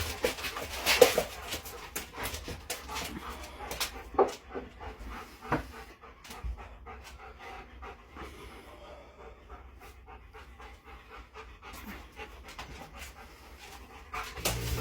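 Hard, irregular panting breaths, with short sharp clicks and knocks among them over the first few seconds, then dying down to quiet, faint breathing.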